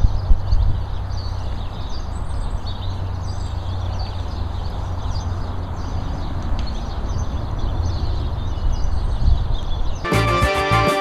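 Outdoor ambience: a steady rumble of wind on the microphone, gusting at the start, with faint birds chirping. Music comes in about ten seconds in.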